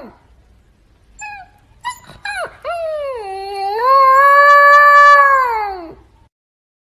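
Husky puppy howling: a few short yips, then one long howl that swells and drops in pitch as it fades out.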